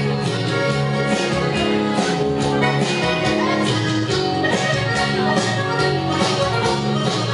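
Live band music: an instrumental break in the song, held melodic lines over a steady beat, with no singing.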